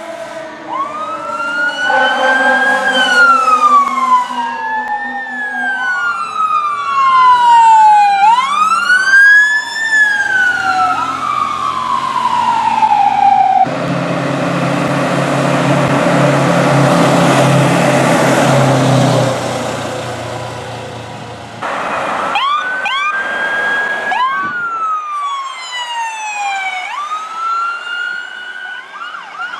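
Emergency-vehicle sirens wailing, several overlapping rising-and-falling sweeps. About 14 s in, a loud, low, steady blare with rushing noise lasts about five seconds as an apparatus passes. From about 22 s in the wailing sirens start again.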